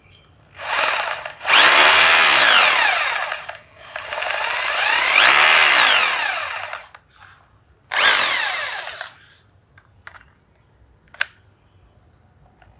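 Hilti TE 3-ML hammer drill running in three bursts, its motor whine rising and falling in pitch as the trigger is squeezed and released. A few short clicks follow near the end.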